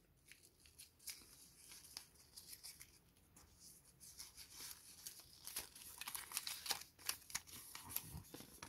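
Faint rustling and crinkling of small folded paper slips being picked out of a plastic jar and unfolded by hand, the crackle growing busier about halfway through.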